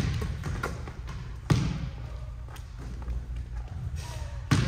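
Volleyball impacts in a gymnasium: a handful of sharp, echoing thuds, the loudest about a second and a half in, with fainter ones around it.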